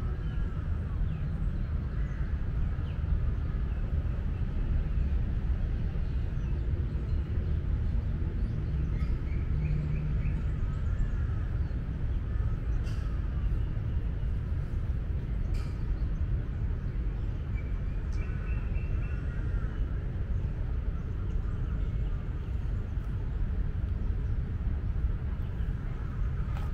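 Outdoor park ambience: a steady low rumble with birds chirping briefly now and then, a few times in the middle.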